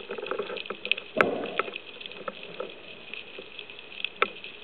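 Underwater noise picked up by a camera mounted on a speargun: a faint crackle with scattered clicks, and a sharp knock about a second in and another near the end.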